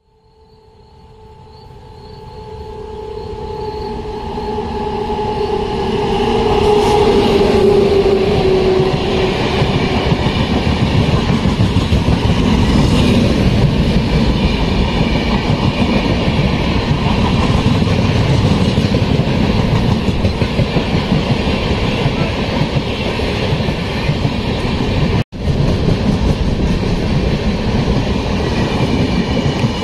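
Vivek Express running through at speed. A long, steady horn grows louder and drops in pitch as the locomotive goes by. Then comes the continuous rush and rattle of the coaches passing close, with a split-second dropout in the sound near the end.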